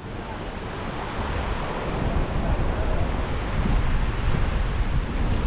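Surf washing against a rocky shoreline, a steady rushing noise, with wind rumbling on the microphone.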